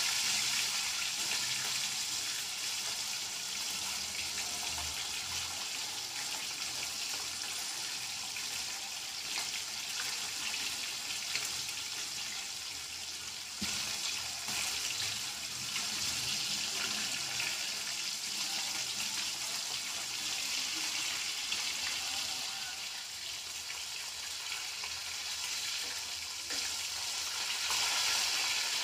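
Pieces of bhola fish, rubbed with turmeric and salt, sizzling steadily in well-heated oil in a shallow pan as they fry towards golden brown.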